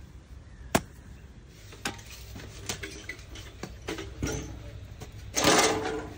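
A hoe chopping into loose garden soil once, about a second in, followed by a few lighter knocks; near the end a short, loud rustling burst.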